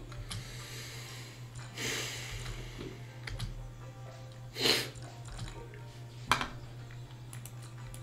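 Faint online slot-game music and reel effects over a steady low hum, with scattered mouse clicks. Two short hissing bursts stand out, the louder near the middle, and a sharp click comes about two-thirds through.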